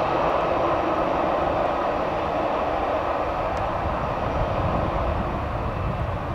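Aircraft engines running with a steady rushing noise and low rumble, slowly getting quieter.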